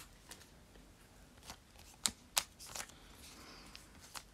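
Pokémon trading cards being handled: several soft, short card clicks and flicks, the loudest two in quick succession about two seconds in, and a brief papery slide a little after three seconds.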